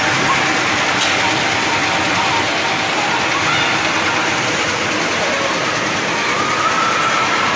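Loud, steady din of an indoor amusement centre: ride machinery and background crowd noise blended into a dense wash, with a faint tone rising slightly near the end.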